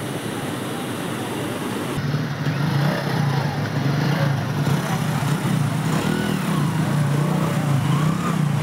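A motorcycle engine running at low speed as the bike wades through floodwater, its note wavering up and down. It starts about two seconds in, after a steady rushing noise.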